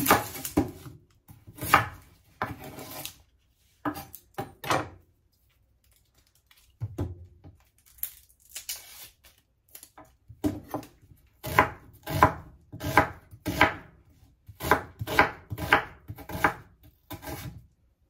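Kitchen knife chopping an onion on a cutting board: uneven runs of chops with a couple of short pauses.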